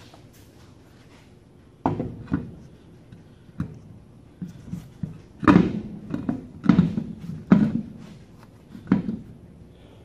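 Irregular dull metal clunks and knocks, a dozen or so starting about two seconds in and heaviest around the middle: a truck wheel being handled and fitted back onto a drum-brake front hub.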